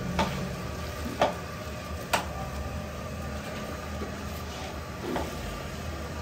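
Three sharp clicks or knocks in the first two seconds and a softer one near the end, over a steady low hum.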